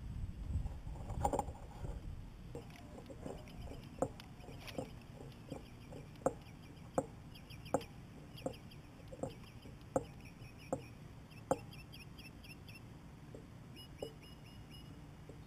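Birds calling by the water: a steady series of short, evenly spaced clucks about every three-quarters of a second that stops about two-thirds of the way through, over repeated groups of high chirps. A low knock and rustle about a second in.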